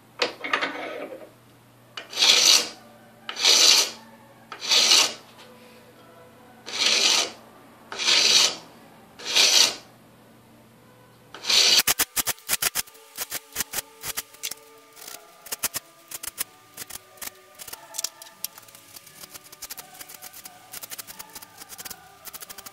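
Hand file rasping across a small metal part clamped in a bench vise, in about eight long, loud strokes roughly a second apart. About halfway through it changes to a quicker, lighter run of short scratches.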